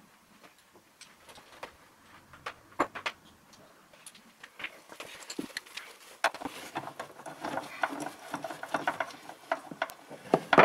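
Tools being handled: scattered light clicks and knocks at first, then denser, irregular clatter and rustling from about six seconds in as a hand works in around the brake master cylinder.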